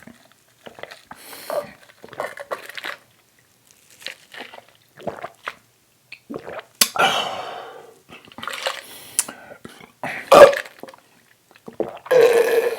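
Close-miked chewing and wet mouth sounds of eating a toasted English-muffin breakfast sandwich, in irregular bursts. Near the end comes a louder held burp.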